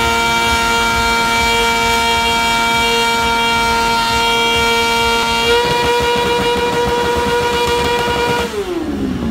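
Mini motorcycle's small engine held at high revs during a stationary burnout, a steady high-pitched drone that climbs a little about halfway through. Near the end the pitch falls away as the throttle comes off.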